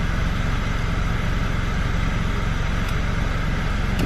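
Car engine idling steadily, heard from inside the cabin as an even low hum with a fast regular pulse, with a couple of faint clicks near the end.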